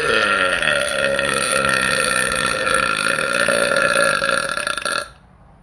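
A woman's single long, loud belch lasting about five seconds. It falls in pitch at first, holds steady, then cuts off suddenly.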